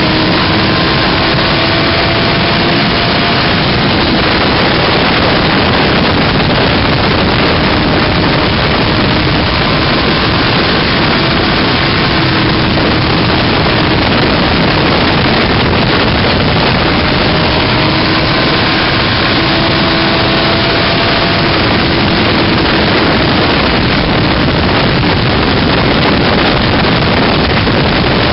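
Sport motorcycle ridden at high speed, heard from the rider's position: loud, steady wind rush on the microphone, with the engine's note faint beneath it and rising slowly in pitch now and then.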